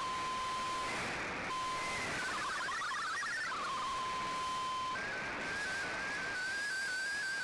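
MFSK digital-mode shortwave signal received on an Icom IC-R8600, over static hiss: a steady single tone, a short burst of warbling data tones (the picture header), the steady tone again, then from about five seconds in a string of short rising chirps repeating a few times a second as an MFSK picture transmission begins.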